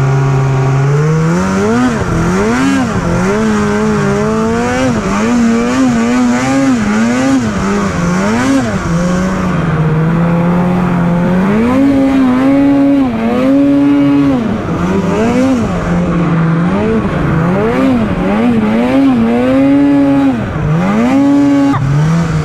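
Mountain snowmobile's two-stroke engine revved up and down again and again as it is ridden, the engine note rising and dropping with each burst of throttle.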